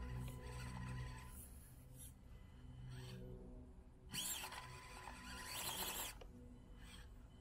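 Small electric motor and gears of an Axial SCX24 RC crawler whining faintly as it crawls over rock. Twice, about four seconds in and again around six seconds, there is a louder scrabbling burst.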